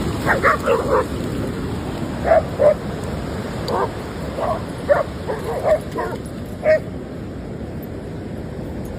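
A dog barking and yipping in short, irregular calls, about a dozen over the first seven seconds, over a steady background hiss.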